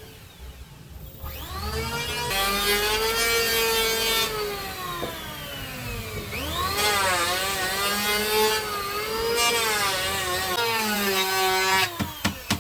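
Electric power tool running: its motor winds up about a second in, its pitch sagging and recovering as it cuts wood, drops sharply halfway through and winds up again. A few sharp knocks near the end.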